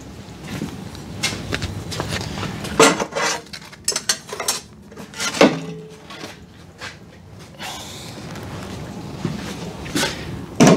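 Steel bars and tools clanking and clattering as they are handled in a blacksmith's shop: a string of sharp metallic knocks, a few leaving a short ringing tone, the loudest about three seconds in, halfway through and near the end.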